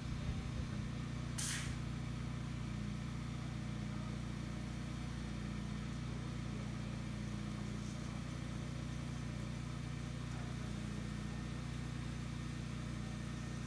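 Sino Star S9 touchless car wash machine running with a steady low mechanical hum as its gantry works over a car. A short hiss sounds about a second and a half in.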